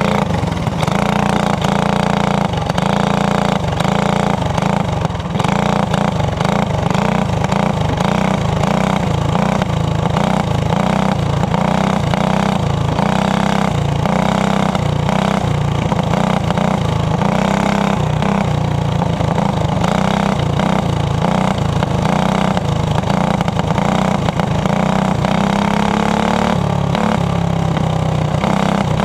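Racing kart's small engine running hard on a dirt oval, heard close up from onboard, its revs rising and falling with the throttle through the turns.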